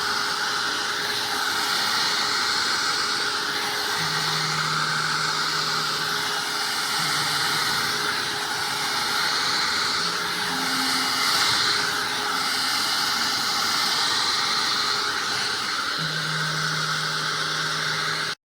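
Hot air brush hair dryer's fan running steadily, a constant airy hiss with a faint whine.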